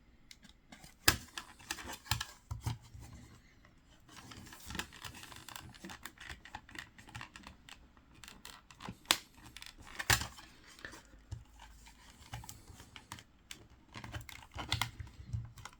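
Hands working at an external hard-drive enclosure that won't come apart: scraping and rubbing on the casing, with scattered sharp clicks. The loudest clicks come about a second in and around nine and ten seconds in.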